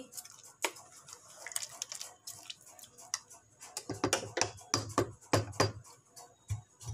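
Wooden spatula stirring chicken curry in an aluminium pot, knocking and scraping against the pot with scattered sharp clicks. A quicker run of heavier knocks comes between about four and six seconds in.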